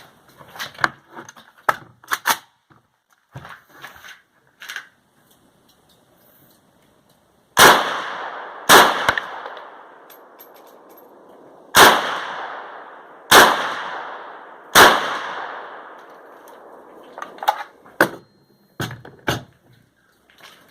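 Five single rifle shots from a Type 81 rifle in 7.62×39 mm, fired one at a time about one to three seconds apart, each followed by a long echo dying away. Quieter clicks and knocks come before and after the shots.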